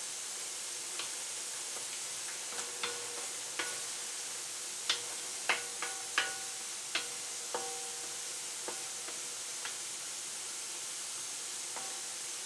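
Chicken hearts and gizzards sizzling steadily in a frying pan, with a utensil knocking against the pan about a dozen times at irregular intervals as they are stirred, some knocks leaving a short ringing tone.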